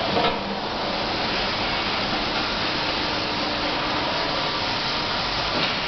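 Steady machinery noise, an even hiss and hum from a running machine or its cooling and extraction fans, with a faint click shortly after the start and another near the end.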